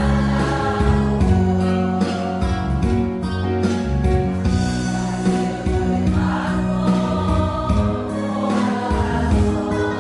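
A group of voices singing a Korean popular song together over an accompaniment track with a steady bass line.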